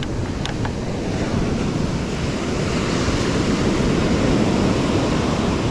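Ocean surf breaking and washing up the beach, with wind buffeting the microphone. A couple of faint clicks about half a second in come from the spinning reel in the angler's hands.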